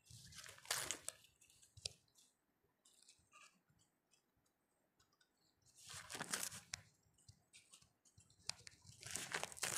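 Faint rustling and crinkling of soft tissue paper being pressed onto a glue-coated paper cup, in three short spells: at the start, about six seconds in, and near the end.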